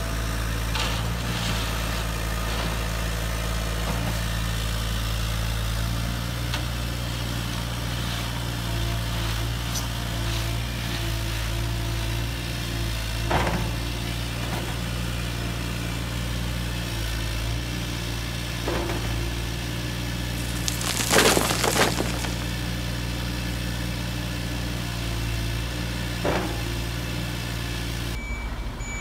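Radio-controlled excavator loading gravel into a toy dump truck: a steady low engine-like hum runs throughout. A few sharp clicks and knocks come over it, and a denser clatter of stones lasting about a second comes roughly two-thirds of the way in, the loudest moment.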